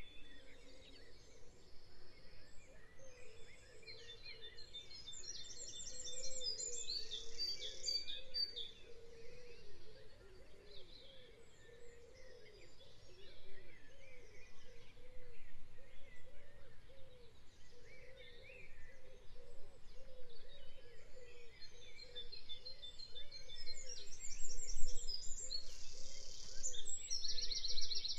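Recorded birdsong ambience: several birds chirping and trilling over a steady outdoor background, with quick trilled phrases around the middle and again near the end.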